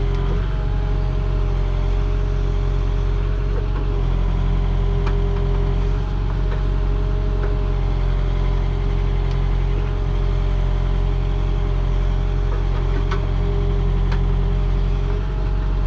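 JCB 3CX Compact backhoe's diesel engine running steadily, with a constant whine above the engine note and a few faint clicks.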